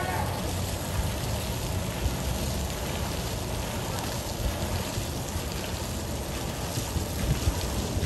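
Fountain water falling from the jets and splashing steadily into the basin, a continuous rain-like hiss with a low rumble underneath.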